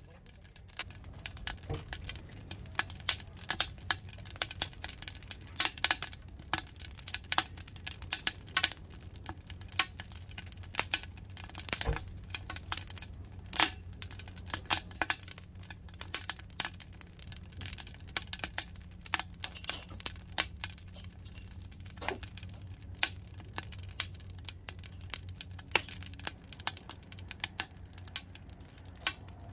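Split firewood crackling as it burns in a homemade double-combustion steel fire pit, with irregular sharp snaps over a low steady hum.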